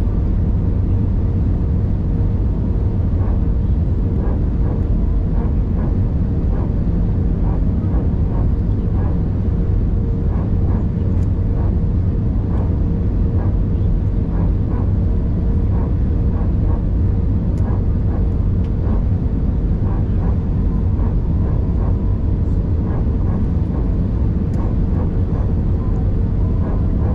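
Steady low rumble of an Airbus A320-200 cabin: engine and airflow noise with a steady hum running through it.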